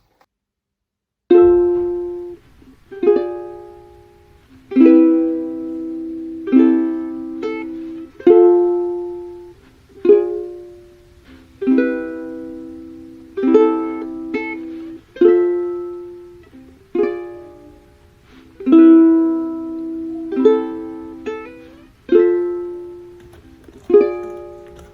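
Background music: a plucked string instrument strums chords, each ringing out and fading before the next, about one every second and a half to two seconds. It starts after about a second of silence.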